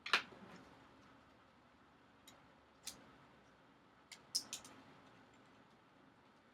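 A few faint, sharp clicks and taps from small tablet parts and tools being handled during disassembly: one just after the start, two more a few seconds in, and a quick cluster of three or four past the middle.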